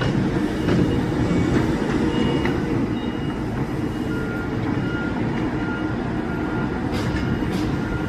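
Diesel engines of tracked excavators and dump trucks running steadily, with backup alarms beeping: a higher-pitched one in the first half, then a lower one about twice a second from about four seconds in. Two sharp knocks near the end.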